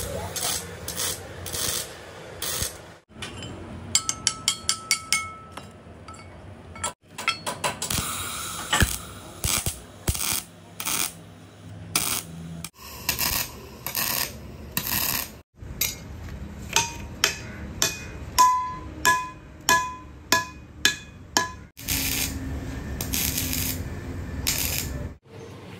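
Hammer blows on the steel bush of a JCB 3DX backhoe stabiliser arm, ringing sharply, in two runs: a fast one a few seconds in and a slower one of about two strikes a second past the middle, which is the loudest. Stretches of crackling electric arc cutting on the bush come between them, in short segments that cut off abruptly.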